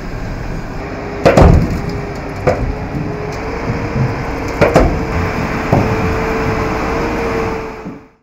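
Eight-wheeled armoured personnel carrier rolling down an aircraft's metal cargo ramp: sharp, heavy knocks as the wheels go over the ramp, the loudest about a second in and again past the middle. Under them runs a steady rumble, joined about a second in by a held whine. The sound fades out at the end.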